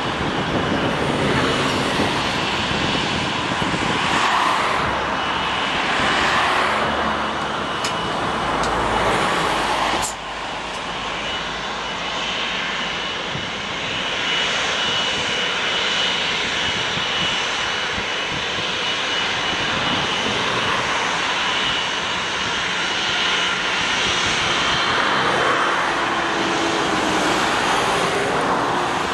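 Jet engines of a British Airways Boeing 777 running at taxi power: a steady rushing noise with a thin, constant high whine.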